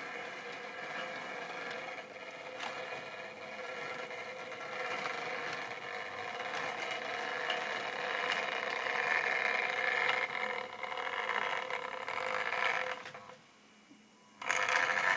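Model railway train running on the track: a steady hum from the locomotive's small electric motor, with wheels clicking over rail joints as the tank wagons roll by. The hum grows louder, drops away suddenly about 13 seconds in, and a brief loud burst follows near the end.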